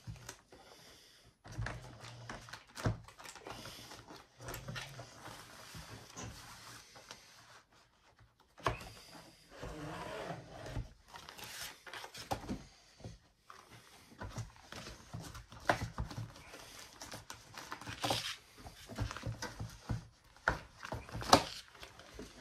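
Plastic vacuum-seal bag material rustling and crinkling as it is handled and fed into a portable vacuum sealer, with scattered clicks and knocks from the sealer's parts being set in place. A sharp click near the end is the loudest sound.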